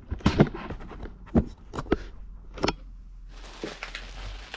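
About five sharp knocks and clicks from objects being handled and set down, spread over the first three seconds, then a low steady hum with a faint hiss near the end.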